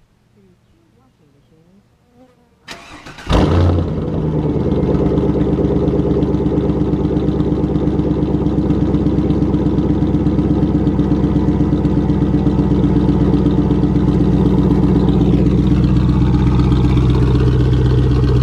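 2000 Camaro SS's LS1 V8, exhausting through a Dynomax bullet muffler into straight dual pipes, cranked on the starter and catching about three seconds in with a loud burst. It then settles into a steady, rhythmic cold-start idle.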